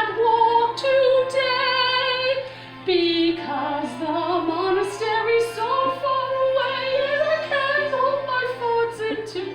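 A woman singing with heavy vibrato on long held notes, with a short break about three seconds in.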